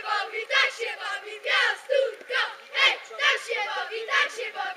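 A huddle of boys' football players chanting in unison, shouting together in a steady rhythm of about two shouts a second.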